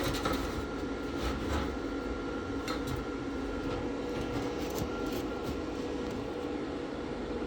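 Steady mechanical hum like a running fan, with a few light clicks and taps of metal being handled.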